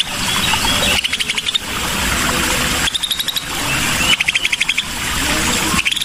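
Recorded song of a scaly-breasted bulbul (cucak sisik): short, rapid trills of clipped high notes every second or two, with a few gliding notes between them over a steady hiss.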